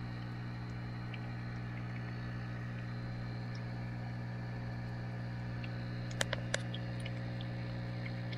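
Steady low electrical hum of an aquarium pump, with three sharp clicks a little over six seconds in.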